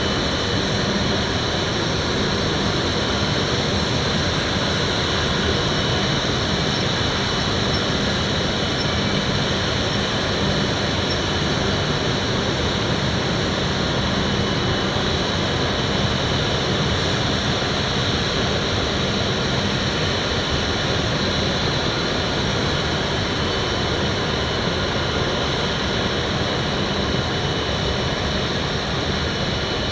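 Steady mechanical drone and hiss from an E7 series Shinkansen train, with a low hum and a constant high-pitched whine over it.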